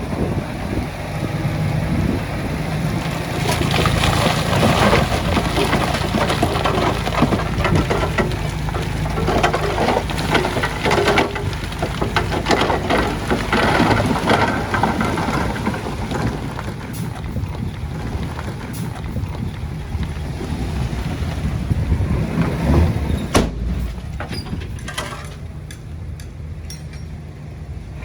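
Heavy diesel earthmoving machinery running steadily, with loose stone crunching and rattling over the first half and a few sharp knocks near the end.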